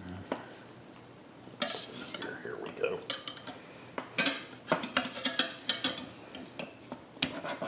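Spatula scraping and knocking against the inside of a stainless steel electric skillet as an enchilada is worked loose to be lifted out: quiet at first, then a run of sharp clicks and scrapes from about a second and a half in.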